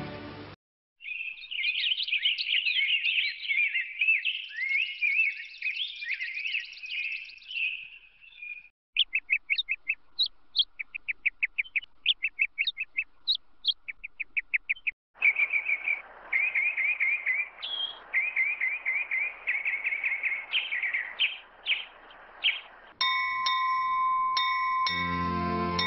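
Birds chirping and singing in three separate stretches: a run of warbling chatter, then a quick series of short repeated notes, then more chirps over a soft hiss. Near the end a hanging bell, rung by pulling its clapper rope, rings with a long steady tone.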